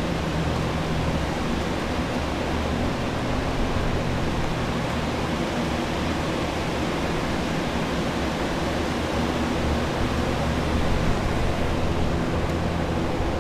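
Flood-drying equipment running: several air movers and a commercial dehumidifier blowing, a steady rush of air over a low motor hum.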